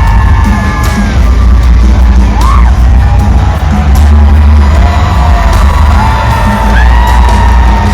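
Loud music with a heavy bass beat and a singing voice holding long notes and sliding between them.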